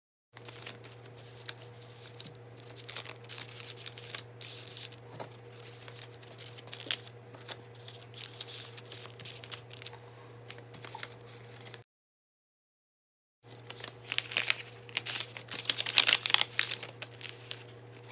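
Paper rustling and crinkling as mail-art papers and cards are handled and unpacked, over a steady low hum. The rustling is louder near the end, and the sound drops out to dead silence twice at edit cuts.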